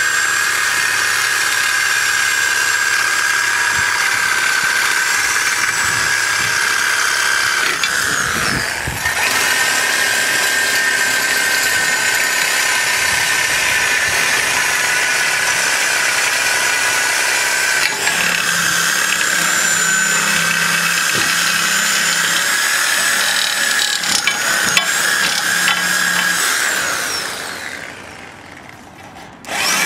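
Handheld electric power tool running steadily with a high whine as it cuts through a steel fence pipe, dipping briefly about eight seconds in and winding down near the end.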